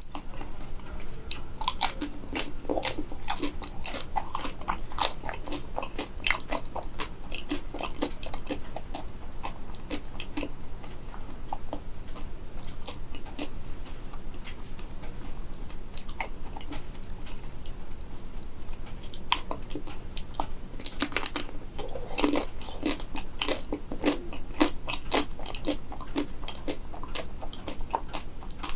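Close-up biting and chewing through a crisp chocolate shell on a banana, many short crunches in two busy spells, about two to six seconds in and again about twenty-one to twenty-six seconds in.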